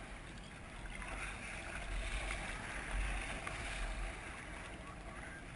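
Kayak paddle strokes splashing and swishing through the water, heard through a helmet-mounted GoPro with wind rumbling on the microphone; the splashing grows louder for a couple of seconds in the middle.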